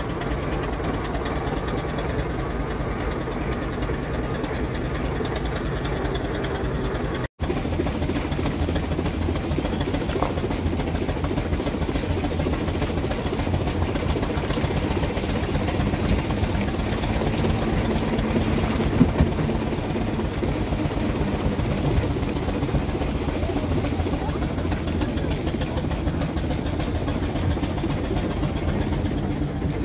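Steam traction engine running steadily as it hauls uphill, heard from the vehicle it tows, with one sharp knock about two-thirds of the way through.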